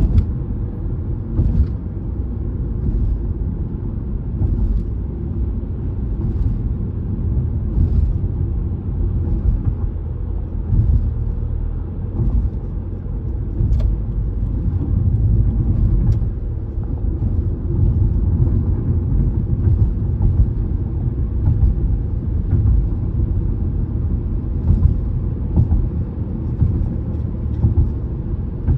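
Car tyre and road noise heard inside the cabin at expressway speed: a steady low rumble. Light knocks come every second or two as the tyres cross the elevated road's expansion joints.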